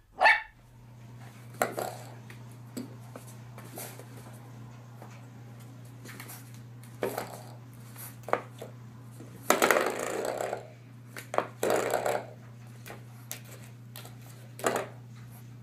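A small dog yelps about twice right at the start. Then a French bulldog puppy paws at a spring door stopper, giving scattered short twangs and small yips over a steady low hum.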